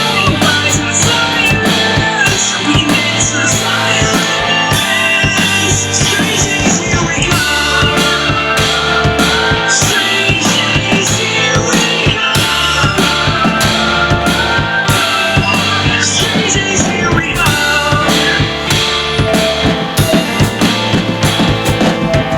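Instrumental rock music: a drum kit beat with kick and snare over guitars and bass, without vocals, breaking into more separate, spaced hits near the end.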